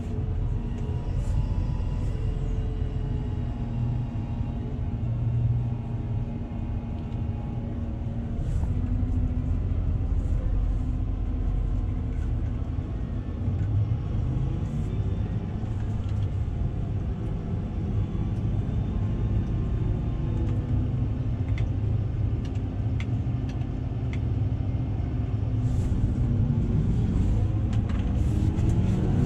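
Tractor engine running steadily under load while pulling a cultivator, a low drone whose pitch drifts slightly, with a few faint clicks.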